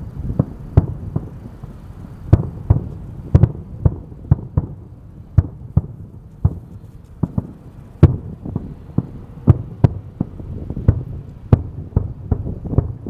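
Fireworks display: aerial shells going off in a rapid, irregular string of sharp bangs, about two a second, over a steady low rumble.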